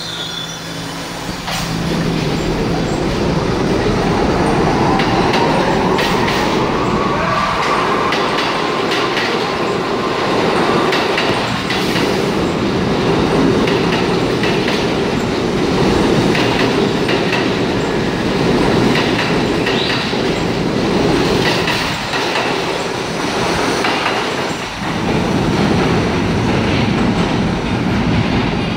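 R68 subway train with Westinghouse 1447-C traction motors pulling out of the station. The motor whine rises in pitch over the first ten seconds or so as the train speeds up, over a steady rumble of wheels clattering on the rails while the cars go by.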